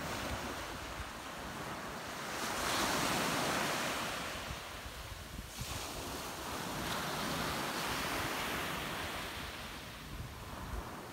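Small surf breaking and washing up a sandy beach, swelling twice as waves come in, with wind buffeting the microphone.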